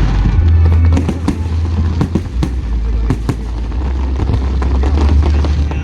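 Aerial fireworks bursting in quick succession: many sharp bangs and crackles over a deep, continuous rumble.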